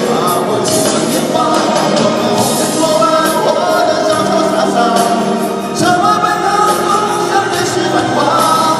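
A song performed with singing voices over musical accompaniment, the notes held and moving in a slow melody.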